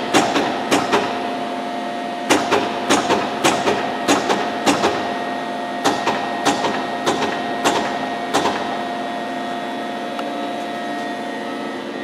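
Cincinnati Milacron 220-8 centerless grinder running with a steady hum, while its electro-hydraulic infeed clicks about three times a second in three runs with short breaks, the clicking stopping about eight and a half seconds in.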